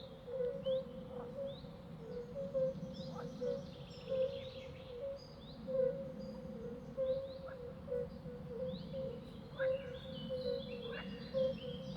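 Outdoor nature ambience: many birds chirping in short, repeated high notes over a steady chorus of frogs calling in quick, low pulses.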